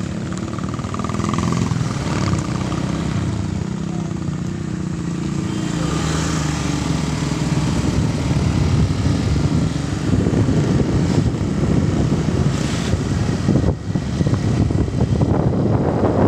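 A motor vehicle engine runs steadily while travelling. From about ten seconds in, a rougher rushing noise grows louder over it.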